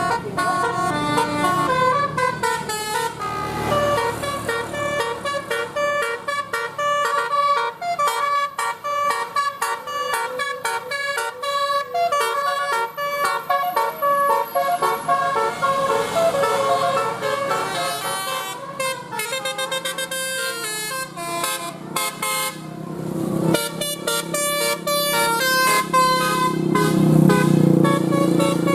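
Bus telolet horn, a multi-trumpet air horn, playing a long string of quick melodic notes, tune after tune with brief breaks. A low rumble grows louder over the last few seconds.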